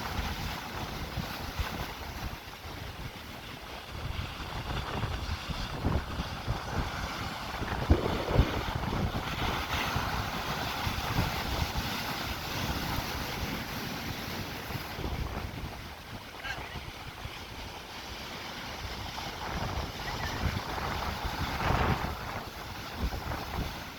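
Sea waves breaking against rocks, a continuous wash of surf that swells louder about a third of the way in and again near the end, with wind buffeting the microphone.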